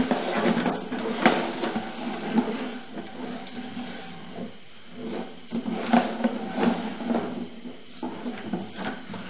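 Push cable of a sewer inspection camera being fed down the line, with irregular sliding and rattling and a few sharper knocks.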